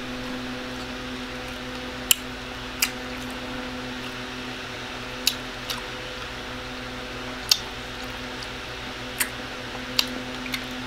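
Close-miked chewing of crispy lemon pepper fried chicken: about eight short, sharp crunches and mouth smacks, irregularly spaced a second or two apart, over a steady low hum.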